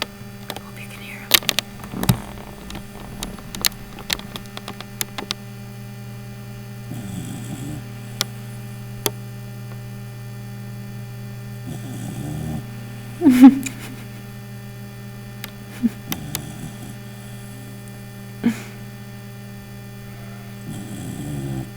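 A sleeping pet snoring softly in slow breaths, one about every four to five seconds, over a steady electrical hum. Scattered sharp clicks come through, with one louder sharp sound a little past halfway.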